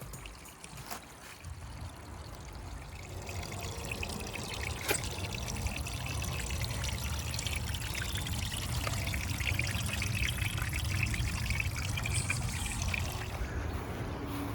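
Water trickling and splashing down a small pondless waterfall fed by a solar water pump, the flow building over the first few seconds and then running steadily. A single sharp click about five seconds in.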